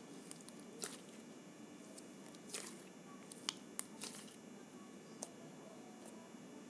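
Homemade paper-based slime squeezed and poked by hand: faint, scattered squishes, with a few sharper clicks and pops about midway.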